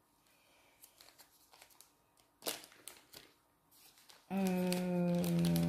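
Faint light clicks and a short rustle of hands handling craft materials, then a woman's long held 'euh' on one flat pitch.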